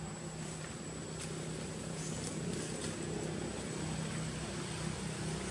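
A steady low engine-like hum, with a thin high steady whine above it and a few faint soft ticks.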